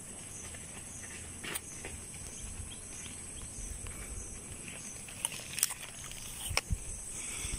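Insects droning steadily at a high pitch, with a faint pulsing chirp about twice a second. A few sharp clicks or snaps stand out about a second and a half in and again near the end.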